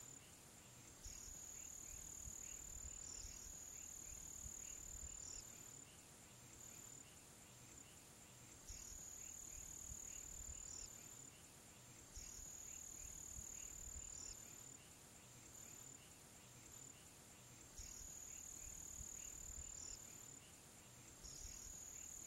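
Faint chorus of insects: a high, steady trill that comes and goes in bouts of a few seconds, with softer pulsing calls beneath it.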